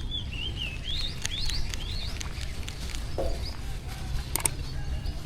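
A bird calling over and over with short rising chirps, over a steady low background rumble, with a couple of sharp clicks near the end.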